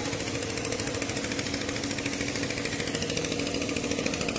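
A machine running with a steady, rapid rattle over a low hum.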